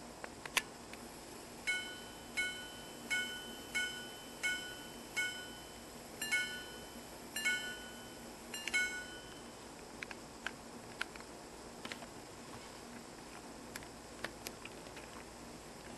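Antique repeating pocket watch chiming on its gongs: six single ringing strikes about 0.7 s apart, then three quick two-note double strikes, the hours followed by the quarters. Faint clicks from the watch being handled follow.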